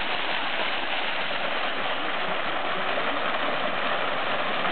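Small waterfall pouring over rocks into a pool: a steady, even rush of falling and splashing water.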